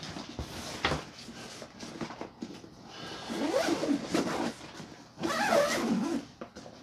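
Zipper of a padded soft crossbow case being pulled shut around the case in several rasping runs. A dog whines twice, around the middle and near the end.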